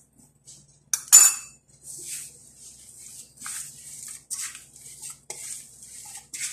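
Hands working crumbly flour-and-egg dough in a large aluminium basin. There is a sharp metal clink about a second in, then repeated scraping and rustling strokes as the dough is pushed and squeezed against the metal.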